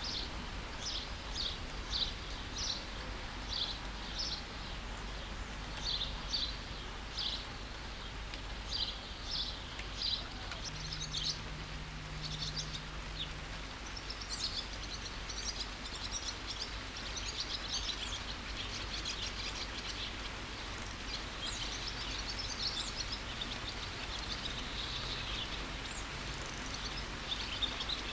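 Steady rain hiss with birds chirping over it: short high chirps repeated about once or twice a second in the first half, giving way to denser twittering in the second half.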